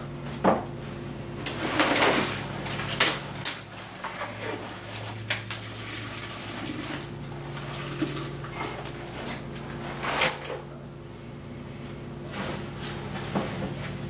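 Handling noises at a small plastic washing machine: scattered sharp plastic knocks and clatters and short rustles as wet material is lifted out of the tub into a plastic bowl, over a low steady hum.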